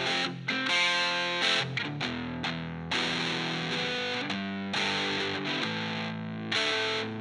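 Gibson Les Paul Studio electric guitar played through a Phaez Daisycutter pedal: a riff of distorted chords, a new chord struck every half-second to second and left ringing until the next.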